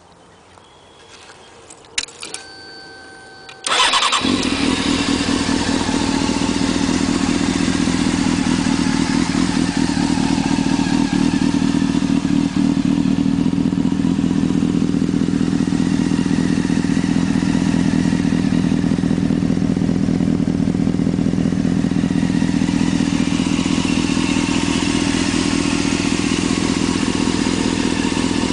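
Honda CBR600F4i's inline-four through a shotgun exhaust: a few clicks and a short whine, then the engine starts about four seconds in and idles steadily.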